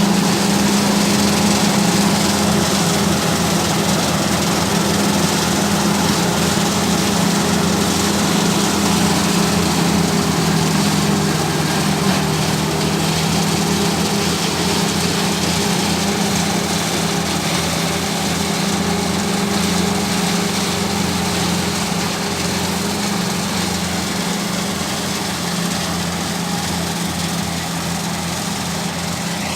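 An engine running steadily at constant speed, with a steady hum and a wide noisy spread over it.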